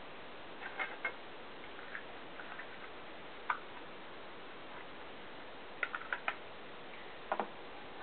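Metal Zippo lighter being handled, giving scattered sharp clicks, including a quick run of four clicks about two thirds of the way through. Beneath them, the steady hiss of a running fan.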